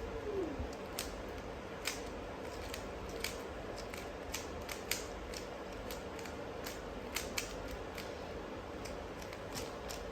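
Rubik's cube being turned by hand: irregular sharp clicks and clacks of the plastic pieces as the layers are twisted.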